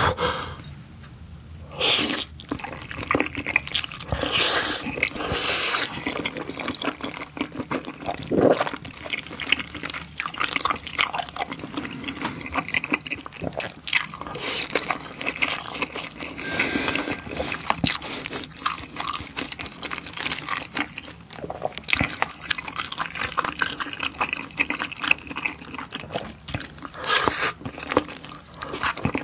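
Close-miked wet eating sounds: slurping saucy Chinese glass noodles and spicy tteokbokki, and chewing a rice ball. There are sticky, wet mouth smacks and small clicks throughout, with louder slurps every few seconds.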